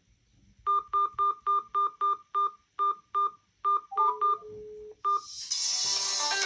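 Smartphone sounding a rapid series of about a dozen short, identical electronic beeps, followed by a longer held tone. About five seconds in, a loud ringtone's music starts.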